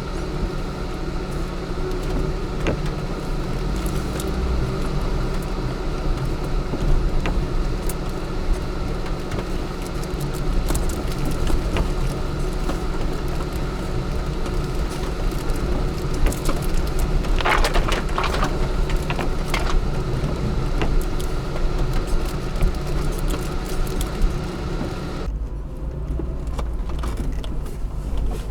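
Lada Niva running off-road: a steady engine note with frequent small clicks and rattles from the vehicle. A brief, louder rush of noise comes a little past halfway.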